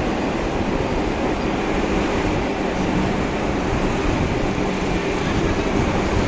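Locomotive-hauled passenger train rolling past, a steady rumble of wheels on the rails with a faint hum.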